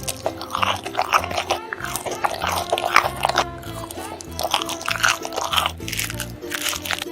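Crunchy biting and chewing eating sounds, repeated every second or so, over background music.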